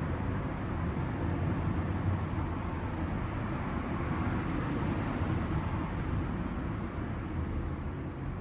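Fire burning in a micro wood stove: a steady low rumble, with a few faint crackles.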